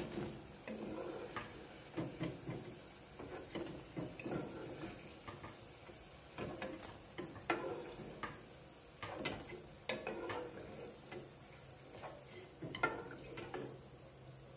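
Wooden spoon knocking and scraping in a pot of frying oil as fried dough balls are scooped out and tipped into a paper-towel-lined metal colander: faint, irregular knocks and clicks.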